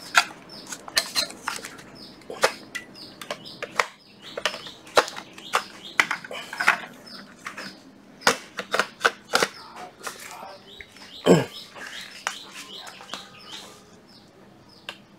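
Irregular clicks, clacks and knocks of hard plastic and metal as cordless power tools are handled, with one louder knock about eleven seconds in.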